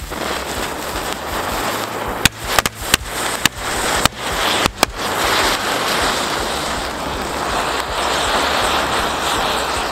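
Cone fountain fireworks hissing steadily as they spray sparks, with a quick series of sharp firecracker bangs from about two to five seconds in.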